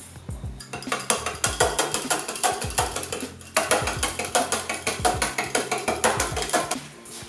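Bar spoon stirring iced coffee, the ice cubes clinking and rattling rapidly against the glass in two spells of about three seconds each, with a short break near the middle. Background music plays underneath.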